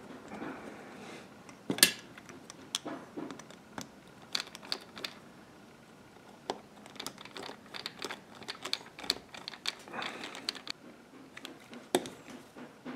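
Small, irregular metal clicks and taps of a screwdriver and screws on a Walbro WF-7 carburetor body as the fuel pump cover screws are driven in, with soft rustling of handling between them. A sharp click about two seconds in is the loudest.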